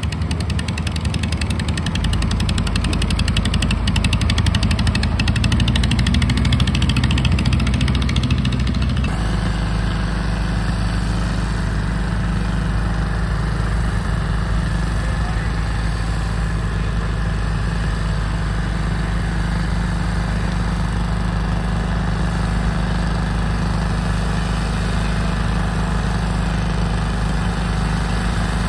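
Garden pulling-tractor engine running, then an abrupt change about nine seconds in to another pulling garden tractor's engine idling steadily.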